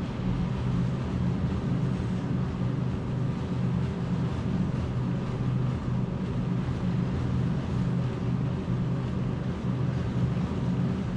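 Motorized treadmill running steadily with a low, even hum from its motor and belt, carrying a person walking briskly up an incline.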